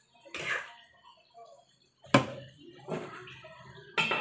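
Metal spatula scraping and stirring in a frying pan, with a sharp clank against the pan about two seconds in. Near the end a metal lid clatters down onto the pan.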